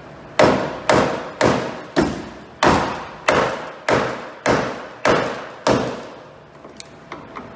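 Hammer blows on a truck's headlight mounting: about ten sharp strikes at a steady pace of roughly two a second, each dying away quickly, stopping about six seconds in. A few faint clicks follow near the end.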